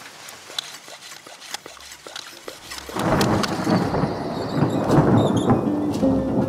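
Scattered raindrop ticks, then a rumble of thunder that comes in loudly about three seconds in and carries on.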